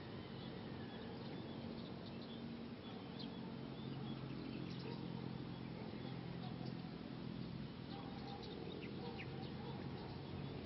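Faint, scattered chirps of small birds over a low, steady background rumble.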